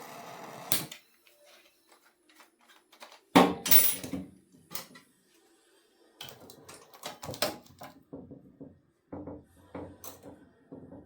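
A steady hiss that stops with a click under a second in, then scattered metal knocks, clinks and clatter of hand tools working a rust-seized bolt on an old Delta 12-inch planer, the loudest knock about three and a half seconds in.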